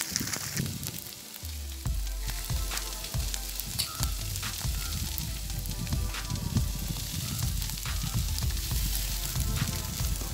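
Dry grass and stubble burning in an open field fire, crackling with frequent small sharp pops over a low rumble.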